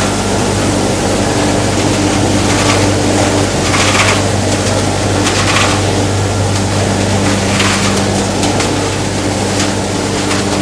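Plastic film washing line running: a steady electric motor hum under a loud rushing, water-like churn, with several brief louder surges of hiss.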